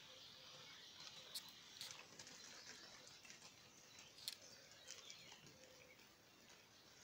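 Near silence: faint outdoor room tone with a few soft ticks and clicks, the loudest about four seconds in.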